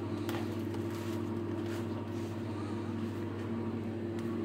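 Steady low hum of supermarket machinery, several held tones that do not change, with a few faint clicks of packaging being handled near the start.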